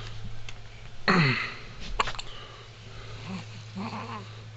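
A baby hiccupping: one sharp hiccup about a second in, with a brief squeak that drops in pitch, then a few soft little voice sounds.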